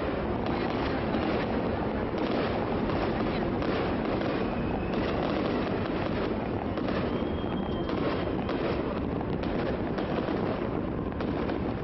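Fireworks over the river bursting and crackling in quick succession, many sharp pops and bangs over a dense steady rush of noise. Two brief whistling tones sound about midway.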